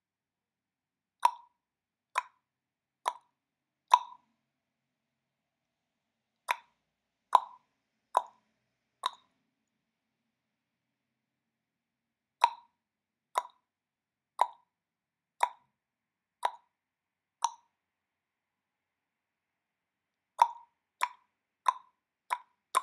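A series of short, sharp clicks, all on the same mid pitch. They come about once a second in loose groups with dead silence between, and quicken near the end.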